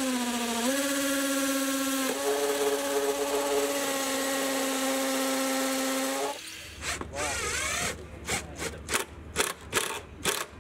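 Cordless drill with a masonry bit boring through a treated 2x4 into concrete block: a steady motor whine that steps up in pitch twice in the first two seconds, then stops about six seconds in. After it comes a string of short, sharp bursts from a cordless impact driver driving a screw into the frame.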